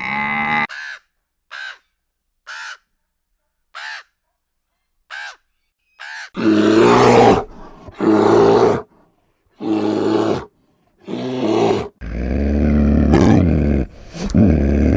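Animal calls: about six short, high calls spaced a second or so apart, then a run of louder, harsher calls, each about a second long.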